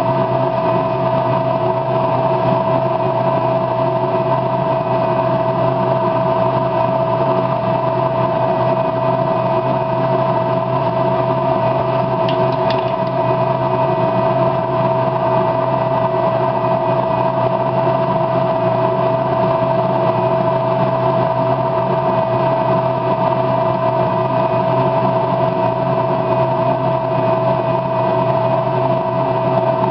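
Steady motor hum with a constant mid-pitched tone, unchanging throughout.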